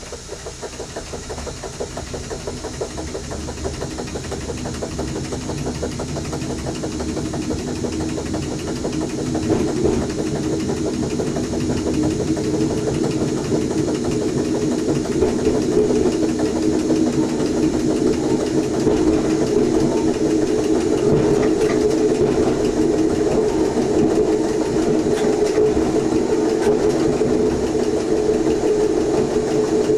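Electric passenger train heard from the driver's cab, gathering speed from low speed: the traction hum and wheel-on-rail rumble grow steadily louder over about the first fifteen seconds, then hold steady.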